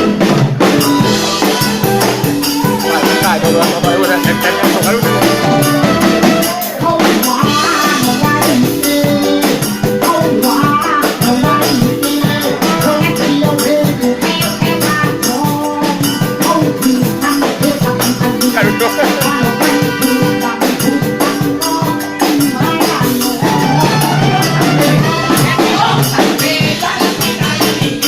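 Live band playing a song in rehearsal, with a drum kit keeping a steady beat, shaker-type percussion and a melodic lead line.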